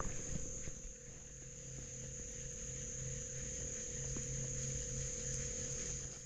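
Insects trilling steadily in a high, even band, with a faint steady low hum underneath.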